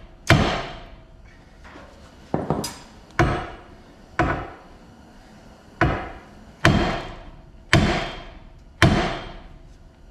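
A heavy hammer strikes a car's steel front steering knuckle about nine times, roughly a second apart, and each blow rings briefly. The blows are aimed at a seized suspension joint stud that will not break free.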